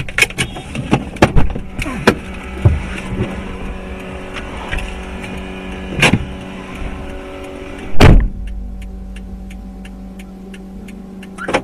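Dust-storm wind buffeting a car, with grit and debris striking the body: a rapid cluster of sharp knocks at first, then single loud thuds about six and eight seconds in and another near the end, over a steady low hum.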